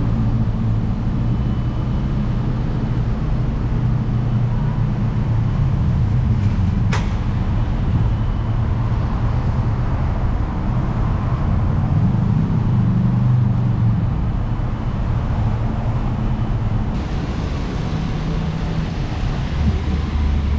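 Road traffic on a wet city street: a steady engine hum from passing and idling vehicles, with tyre noise over it. A single sharp click sounds about seven seconds in.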